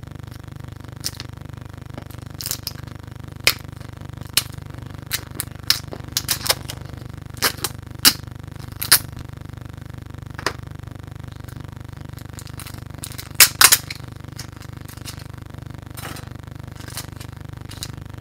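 Two shrink-wrapped cardboard product boxes taped together are cut apart and handled, giving scattered sharp crackles and taps with a cluster of louder ones about two-thirds of the way through. A steady low hum runs underneath.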